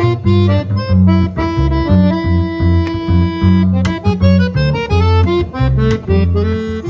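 A chromatic button accordion plays a lively melody of quick notes over a plucked double bass bass line, in a moving rhythm.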